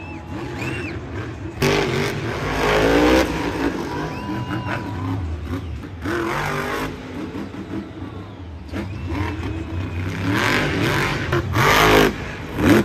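Bakugan Dragonoid monster truck's supercharged V8 revving hard in three bursts: about a second and a half in, around six seconds, and again near the end, the pitch climbing in each.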